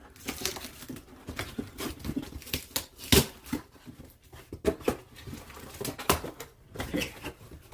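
Handmade paper props and package contents being handled: irregular paper rustles, crinkles and taps, with a louder one about three seconds in and another about six seconds in.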